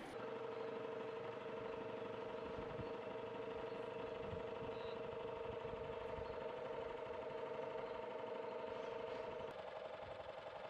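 A small engine running at a steady pitch, a continuous mechanical drone that turns quieter and slightly different near the end.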